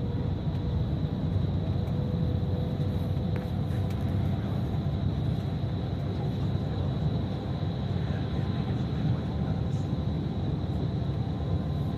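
Bus travelling on the road, heard from inside the cabin: a steady low engine and road rumble with a faint, constant high whine above it.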